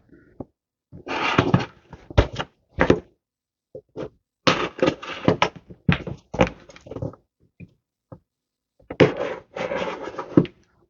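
A shipping package being opened by hand: tearing and rustling of cardboard and packing material in three bursts of scraping and clicking, with short pauses between them.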